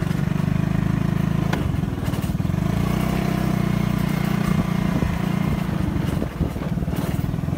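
Motorcycle engine running steadily while riding along, with a couple of short knocks from the ride.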